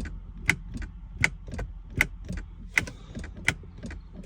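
Repeated clicking from the gear selector surround of a 1995 Jaguar XJR when the brake pedal is pressed, about one sharp click every three-quarters of a second with fainter clicks between. It is one of the symptoms of the car's no-start, immobilised fault.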